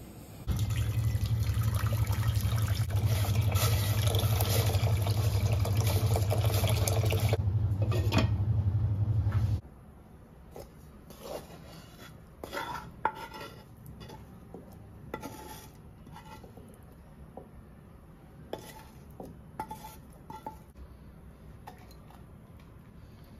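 A loud, steady noise with a low hum runs for the first nine seconds or so, then cuts off. After that come scattered clinks and taps on a stainless steel mixer-grinder jar, some with a short metallic ring, and near the end dried red chillies drop into the jar.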